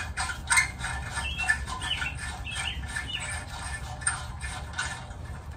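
A wrench working the exhaust manifold bolts on a Subaru Sambar: a run of irregular metallic clicks and taps, with a few short high squeaks in the middle, over a low steady hum.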